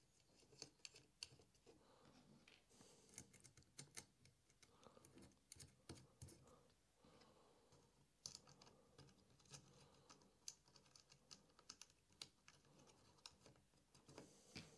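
Faint, scattered small clicks and taps of nylock nuts being picked up and threaded by hand onto bolts on a metal CNC plate.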